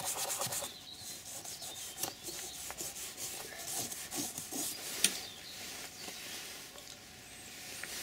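Toothbrush scrubbing leather cleaner into the leather door panel of a Rolls-Royce Silver Spirit II. Quick, dense brushing strokes in the first second, then fainter, slower scrubbing, with one sharp click about five seconds in.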